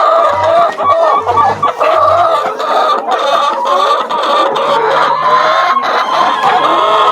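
A flock of chickens clucking and calling, many overlapping voices at once.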